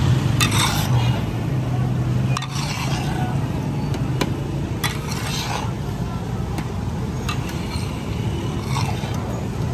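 Metal spatulas scraping and clinking against a large steel tawa griddle as a mound of daal and egg is chopped and turned, in irregular knocks and scrapes over a steady low hum.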